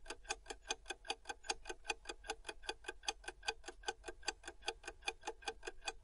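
Clock ticking sound effect for a quiz countdown timer: fast, even ticks, several a second.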